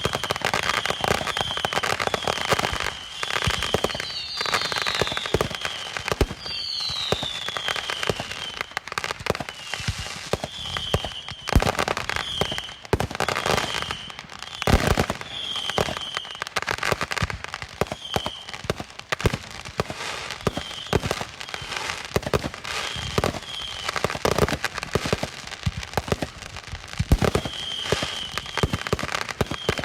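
Fireworks going off in a dense, continuous barrage of bangs and crackles, with brief high whistling tones, some falling in pitch.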